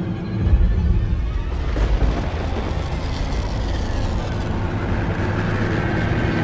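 Background music with a deep rumble of thunder that sets in about half a second in and swells again around two seconds.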